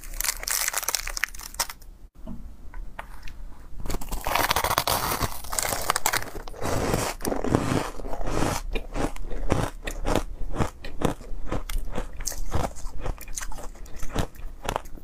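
Biting and chewing a block of refrozen powdery ice coated in matcha powder: a burst of dense crunching about four seconds in, followed by many sharp crunches in quick succession.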